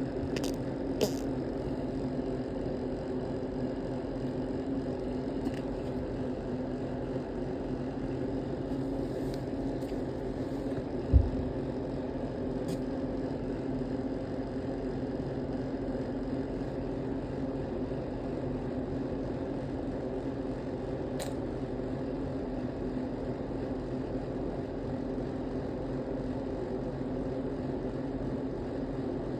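Steady low mechanical hum, with one short low thump about eleven seconds in and a few faint clicks scattered through it.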